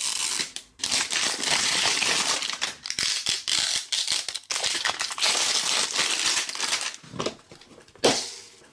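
Clear plastic shrink wrap crinkling and crackling as it is peeled off a hard plastic cupcake-shaped toy capsule. Near the end comes a single short plastic knock as the capsule's lid is worked open.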